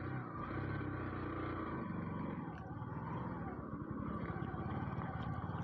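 Bajaj Pulsar NS160 motorcycle's single-cylinder engine running with a steady low note and even firing pulses.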